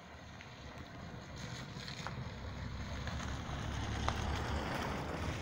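Wind gusting across the phone's microphone, an uneven rumbling noise that builds steadily over several seconds.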